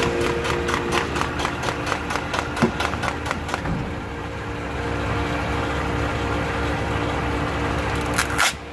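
Rapid, evenly spaced ticking from a 2008 Toyota Tundra's four-wheel-drive drivetrain, the intermittent tick that appears in 4WD going forward, slowing and dying out over the first few seconds as the truck brakes to a stop. The engine keeps idling, and there is one brief loud noise near the end.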